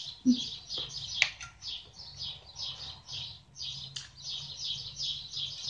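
A small bird chirping rapidly and without a break, about four short chirps a second, over soft eating sounds, with a sharp utensil click about a second in.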